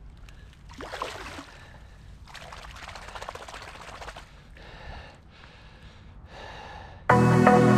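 Released pike splashing and swirling in shallow water as it swims off from the bank, in several short bursts. Music comes in loudly near the end.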